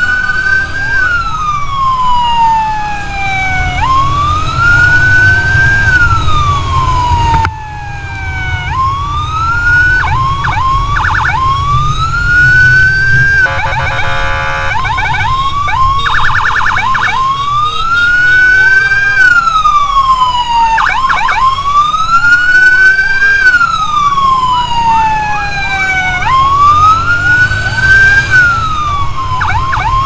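Landun electronic siren on an escort motorcycle cycling through its tones. Slow wails rise for about two seconds and fall for about three, broken up several times by quick yelps and a stuttering hi-lo pattern. Underneath is a steady low rumble of the motorcycle's engine and wind.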